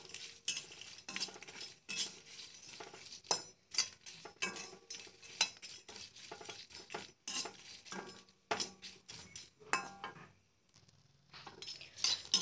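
Metal spatula scraping and clinking against a wok as small dried fish are stir-fried, in quick, irregular strokes, some ringing briefly. There is a pause of about a second near the end before the stirring resumes.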